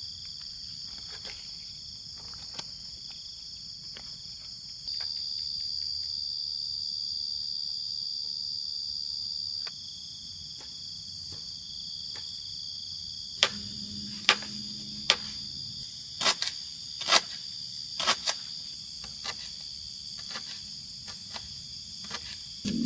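Night-time insect chorus: a steady high-pitched trilling. Through the second half come sharp clicks and knocks, the loudest a little past the middle.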